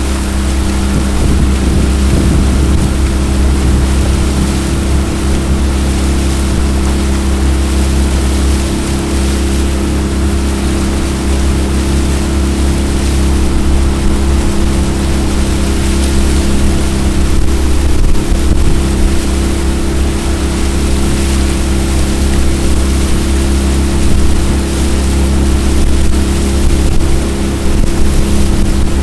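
Jon boat's motor running steadily under way at an even speed, over a continuous rush of wind and water.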